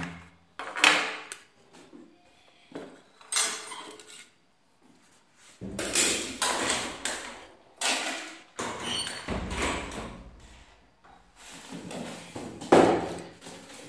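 Pieces of a printed circuit board handled and set down on a tiled floor: several separate sharp knocks and clatters, with scraping and rustling between them.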